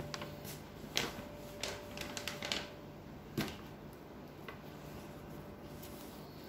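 Scattered faint clicks and rustles of a handheld phone and nearby items being handled, over a steady low hum.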